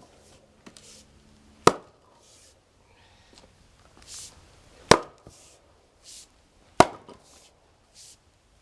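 Firewood being split by hand: three sharp chopping blows of a splitting tool into wood, a couple of seconds apart.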